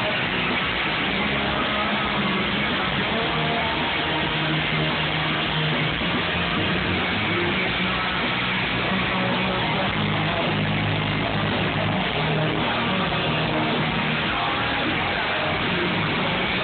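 Rock band playing live through a PA: electric guitar and a drum kit, heard from the audience.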